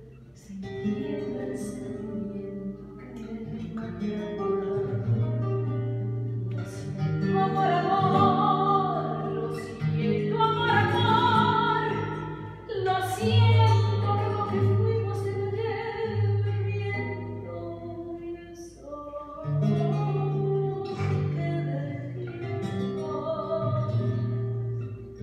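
Live tango music: a singer with vibrato accompanied by acoustic guitar, over held low notes.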